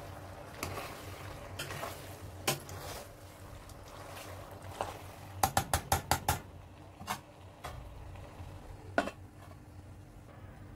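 A spatula stirring saucy pasta in an aluminium pot, knocking and scraping against the pot's side, with a quick run of about seven knocks a little past halfway and a few single knocks after.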